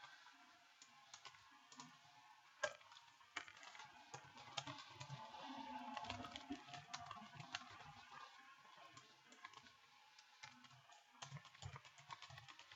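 Faint typing on a computer keyboard: irregular key clicks, with one sharper click about two and a half seconds in.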